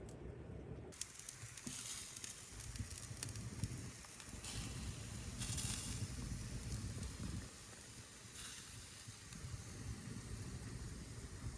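Wood fire crackling, with many small irregular pops over a steady low rumble.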